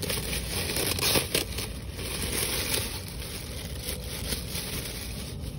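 Thin plastic bag crinkling and rustling as it is opened and pulled off a new cabin air filter, with a few sharper crackles about a second in.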